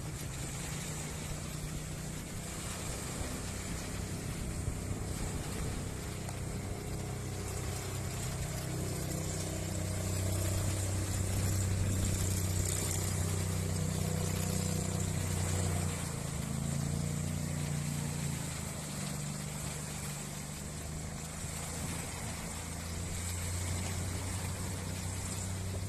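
Engine of a small homemade wooden speedboat running at speed across choppy water: a steady drone that grows louder about ten seconds in as the boat comes closer, with a brief rise in pitch a little past the middle.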